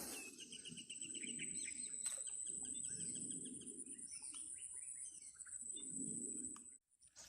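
Forest ambience: a bird calling in quick trilled runs of chirps over a steady, high-pitched insect drone. The sound cuts off abruptly near the end.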